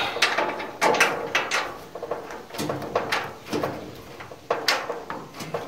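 A Phillips-head screw being turned by hand with a screwdriver into the steel hood-support bracket of a 1966 Ford Bronco hood, giving a string of short scraping creaks, roughly two a second, with each twist. The hole is undersized for the supplied screw, so the screw is forcing its way in.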